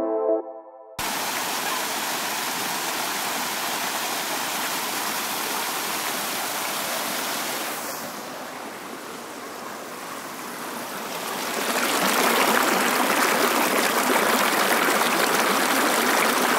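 Ocean shorebreak surf and foamy wash heard from a camera at the waterline, a steady rushing. It eases about eight seconds in and swells louder again from about twelve seconds as the water surges over the camera.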